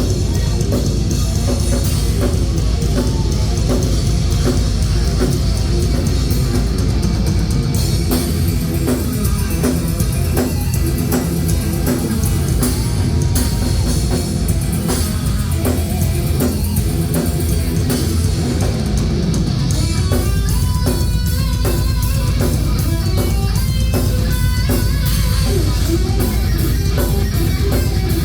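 Heavy rock music with drum kit and distorted guitar, a steady loud beat; the texture changes about twenty seconds in.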